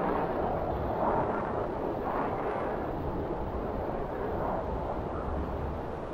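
Strong mountain wind blowing over the microphone, a steady rushing noise with a low rumble that swells in gusts about a second and two seconds in, and again a little after four seconds.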